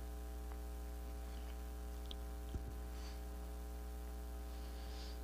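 Steady low electrical hum with a faint single click about two and a half seconds in.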